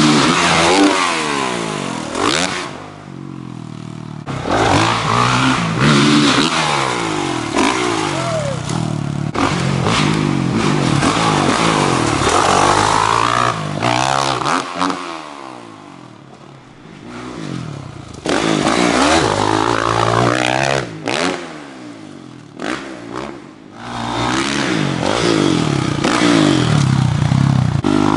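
Dirt bike engines revving hard and dropping back, again and again, the pitch climbing and falling with each burst of throttle. The sound changes abruptly several times, with quieter stretches in between.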